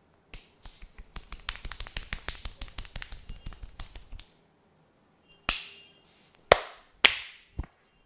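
Rapid percussive hand tapping of an Indian head massage, about six quick strikes a second for some four seconds, then three loud sharp smacks and a softer fourth.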